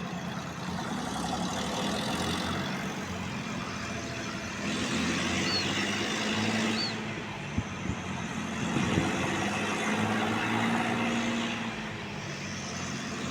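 Steady mechanical hum and background noise, with two short, faint high chirps near the middle.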